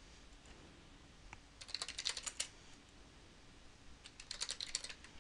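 Typing on a computer keyboard: two short bursts of rapid keystrokes, one about two seconds in and another near the end.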